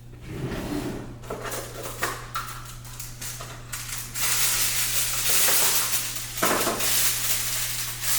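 Kitchen handling sounds: dishes and utensils clattering and knocking, then a continuous noisy scraping from about four seconds in, over a steady low hum.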